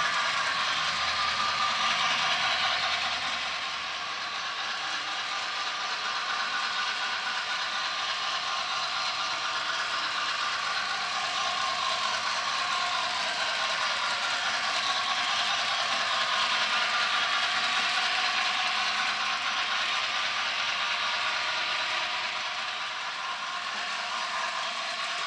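HO scale Bachmann Spectrum 2-6-0 model steam locomotive and its freight cars running on model track: a steady whir from the locomotive's motor and gears with the clatter of wheels on the rails. The sound dips slightly about four seconds in and again near the end.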